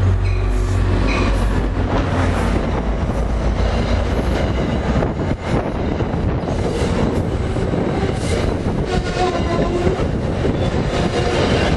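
NJ Transit diesel-hauled commuter train going by at close range: a low locomotive engine hum for the first couple of seconds, then the cars rolling past with steady wheel rumble, clicks over rail joints and brief thin wheel squeals.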